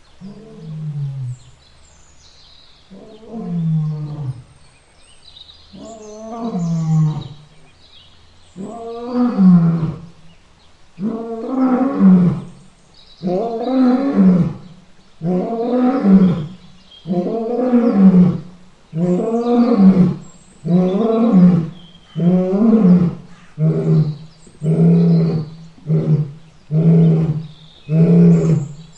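Lion roaring bout: a series of deep roars, a few long, drawn-out ones at first that grow louder, then shorter ones coming faster and faster, about one a second by the end.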